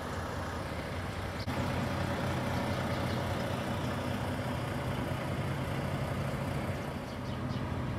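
Diesel engines of semi trucks idling in a stopped line, a steady low hum; a single sharp click about a second and a half in.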